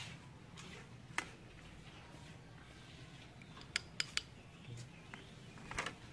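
Metal spoon clinking against a ceramic bowl and a plastic tub as food is ladled out: a few short, sharp clicks, one about a second in, three in quick succession about four seconds in, and a few more near the end.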